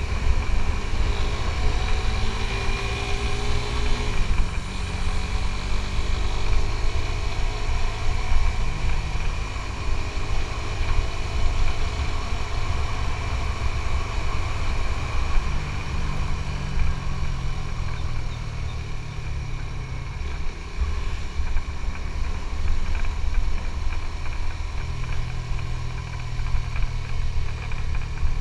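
Suzuki GSX-S150's single-cylinder four-stroke engine running on the move, its pitch dropping about four seconds in, climbing again past the middle and shifting once more near the end as the throttle and gears change.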